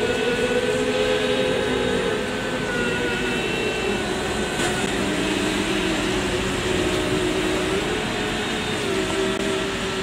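Church choir singing a slow memorial-service chant, holding each chord for several seconds before moving to the next, over a steady haze of outdoor noise.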